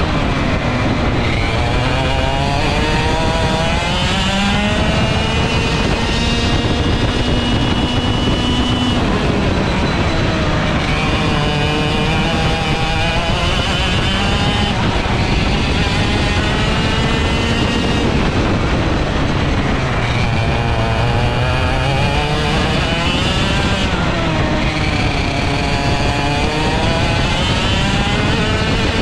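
Vortex ROK GP 125cc two-stroke kart engine at race pace, heard onboard: the revs climb steadily along each straight and fall away under braking for the corners, about four times over.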